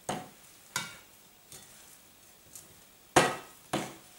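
Wooden spoon knocking and scraping against the side of a bowl while stirring a mashed potato mixture: about six separate knocks, the loudest a little after three seconds in.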